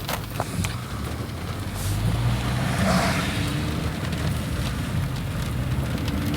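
Low, steady rumble of a car heard from inside its cabin, with a few light clicks early on, growing louder about two seconds in.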